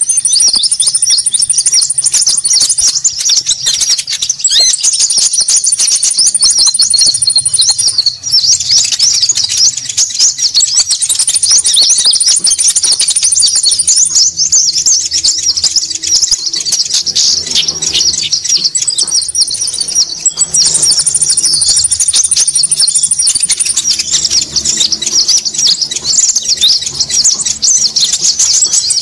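A bird-lure recording of konin calls: a dense, continuous chatter of rapid high chips from several birds at once. A high, even trill about two seconds long breaks in over it every four to six seconds.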